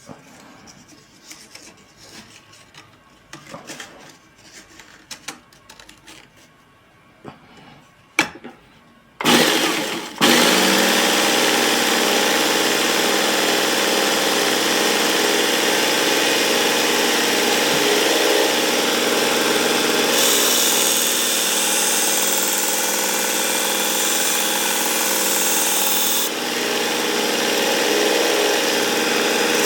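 A few light clicks and handling sounds, then about nine seconds in a Work Sharp Ken Onion Mk II belt sharpener with the blade grinding attachment is switched on and runs steadily with its belt whirring. The hiss brightens for several seconds past the middle, as the cleaver is stropped on the belt charged with 0.5 micron compound.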